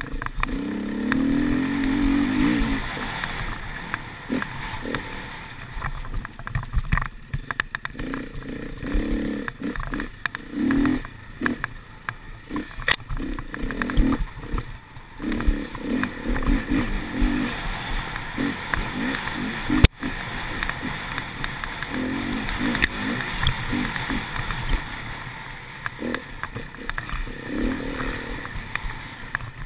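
Enduro motorcycle engine revving up and dropping back in repeated surges as the throttle is opened and closed. A sharp knock comes about twenty seconds in.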